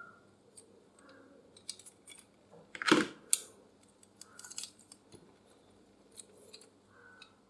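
Scattered light clicks and taps of hard plastic and metal computer parts being handled, with one louder knock about three seconds in.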